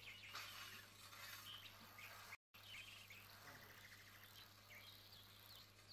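Near silence: faint outdoor ambience with a few faint bird chirps over a low steady hum.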